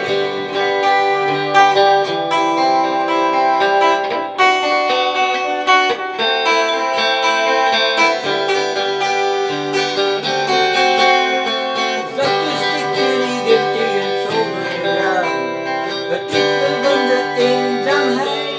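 Instrumental music led by guitar, with no singing.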